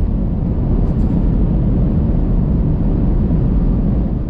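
Steady road and wind noise of a vehicle driving at highway speed, a dense low noise without any clear engine note.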